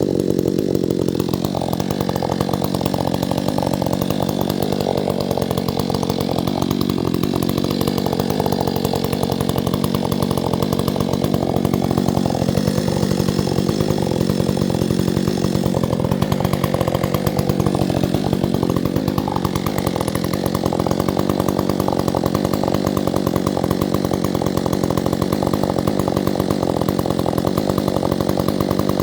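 Chainsaw engine running steadily at high speed. Its pitch dips and recovers a few times, as when the chain is loaded in wood.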